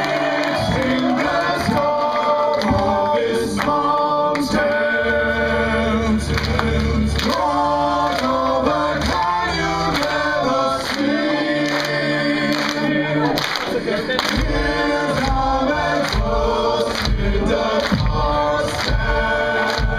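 Live heavy metal band playing a slow, choir-like chorus: several voices sing together over long, low bass notes and drum hits.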